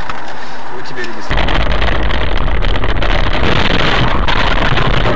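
Car driving, heard from inside the cabin through a dashcam microphone: a quieter stretch of cabin sound, then about a second in an abrupt switch to a loud, steady low rumble of engine and road noise.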